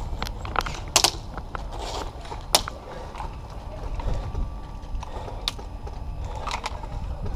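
A few sharp, isolated snaps and knocks, the loudest about a second in and another about two and a half seconds in, over a steady low rumble of movement and handling noise.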